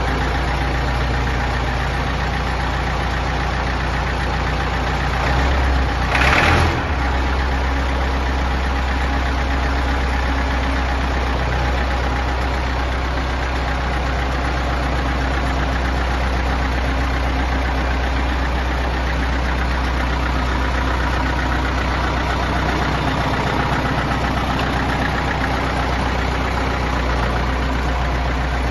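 Massey Ferguson 255 farm tractor engine idling steadily, with a brief louder surge about six seconds in.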